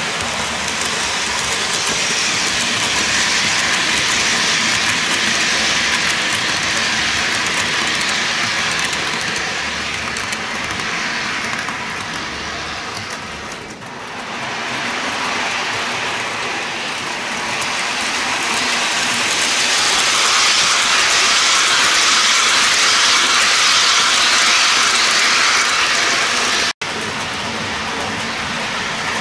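HO-scale model of a class E 140 electric locomotive running along the track, a steady rolling hiss of wheels on rail and the small motor that swells and fades as it passes. A sudden brief dropout comes near the end.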